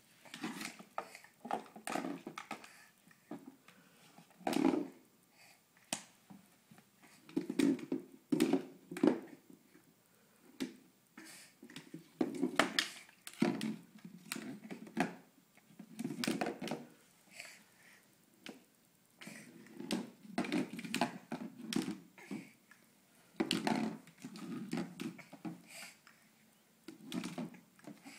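Irregular knocks, taps and scuffs on a hardwood floor: a baby's hands slapping the boards and a plastic sippy cup bumping and rolling across them.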